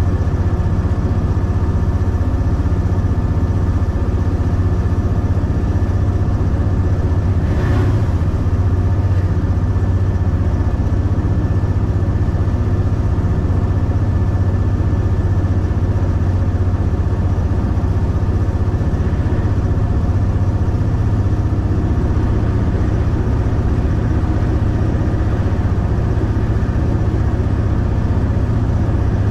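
V/Line A class diesel-electric locomotive's EMD two-stroke V16 diesel engine running steadily under way, heard from inside the cab as a constant deep drone. There is one brief faint knock about eight seconds in.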